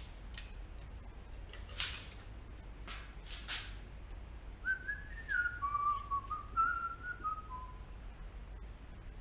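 A man whistling a short tune of a few steady notes, stepping up and down, about halfway through. Before it come a few sharp clicks of parts being handled, and a faint high chirp repeats about twice a second throughout.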